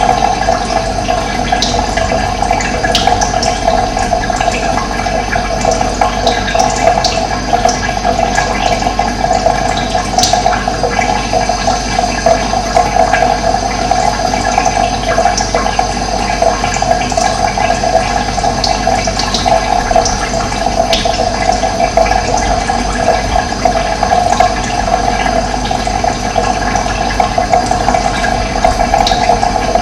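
Steady rushing of running water, with short high bird chirps scattered over it.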